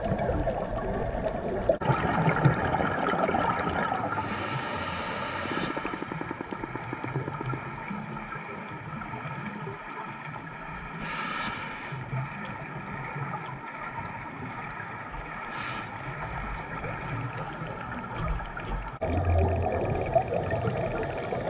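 Underwater sound of a scuba dive heard through a camera housing: a diver's regulator breathing, with a few short hissing inhales several seconds apart and bubbling exhales between them, over a steady low hum.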